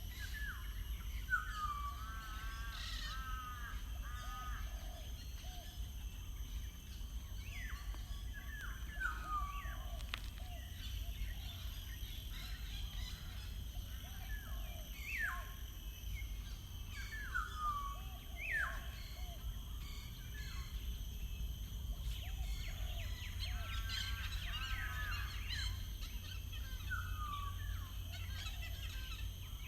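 Wild birds singing: short falling whistled notes repeated every few seconds, with warbling phrases about two seconds in and again around twenty-four seconds, over a steady low background rumble.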